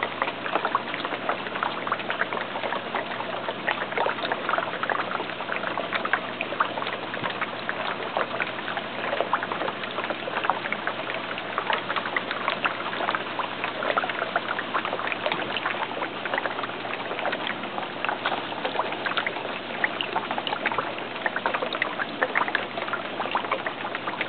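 Water splashing and trickling steadily in a 410-gallon aquaculture tank, peppered with many small quick splashes as tilapia and catfish take floating feed pellets at the surface.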